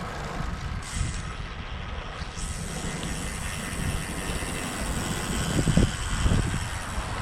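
Wind buffeting the microphone of a moving road bicycle: a low, steady rumble under a hiss, with stronger gusts about five and a half to six and a half seconds in.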